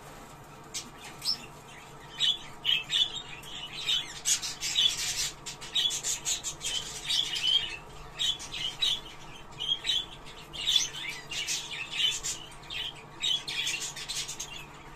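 Budgerigars chattering: a dense run of quick chirps and warbled squawks, sparse for the first couple of seconds and then nearly continuous.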